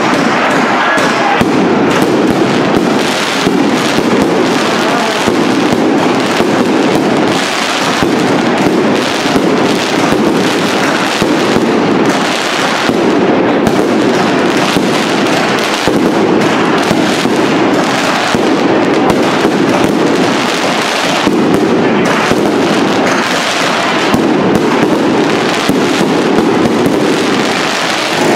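Fireworks display: a loud, dense, unbroken barrage of shells bursting, with constant crackling pops and heavier bangs every second or so.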